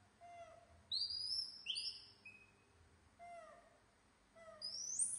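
Young macaque monkeys screaming impatiently for food. Short calls fall in pitch, and two louder runs of shrill squeals rise in pitch, one about a second in and another near the end.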